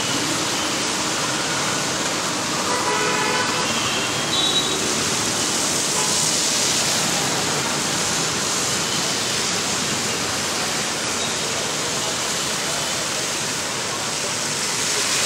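Steady rushing hiss of water from rain and vehicle tyres splashing through a flooded street, with motor traffic running underneath.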